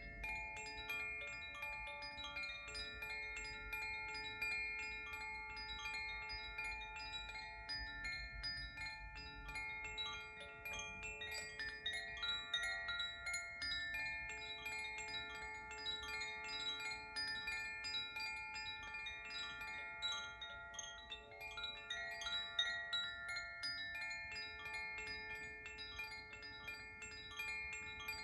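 Koshi chimes rung continuously: a dense, rapid tinkling of many overlapping ringing tones.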